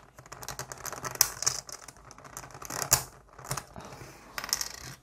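Hard plastic clicks and scrapes of a 3x3 speed cube being taken apart by hand, its centre caps prised off and pieces pulled out. The clicks are irregular, with a few sharper snaps.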